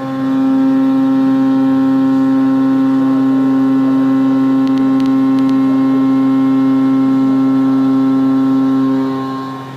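5-axis CNC milling cutter in a swarf cut, taking the material with the side of the end mill, giving a loud steady whine with overtones. It begins at the start and stops abruptly near the end, over a low steady machine hum, with a few faint clicks about halfway through.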